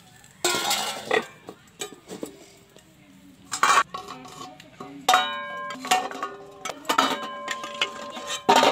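A stainless steel spatula clanking and scraping against a steel pan as boiled eggs are lifted out of the water. Several of the knocks leave the steel dishes ringing.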